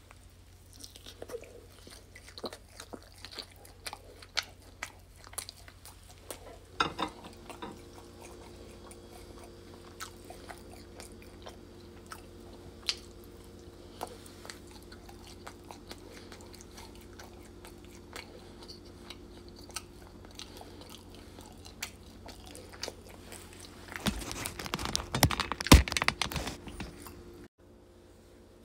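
Close-up chewing and crunching of a crispy breaded chicken tender, with irregular small crunches and mouth clicks. About 24 seconds in, a louder stretch of crunching and handling runs for a few seconds and cuts off suddenly.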